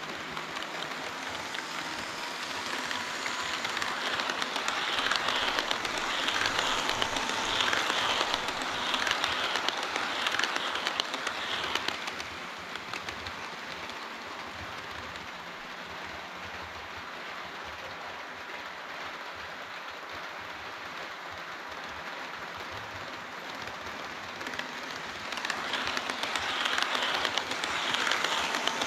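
HO scale model train running on the layout track, a steady rattle of wheels on rail that swells for several seconds from a few seconds in, eases off, and grows louder again near the end.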